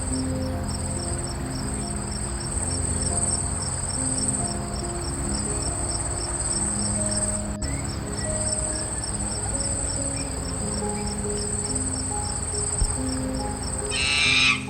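Insects chirping: a steady high trill with a rapid, regular pulse of about four a second, over soft music with slow, held low notes. A loud, different sound, likely an animal call, starts just before the end.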